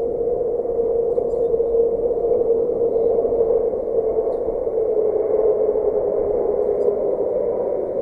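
Strong wind on the nest camera's microphone: a steady rush of noise with a hum that wavers slightly in pitch.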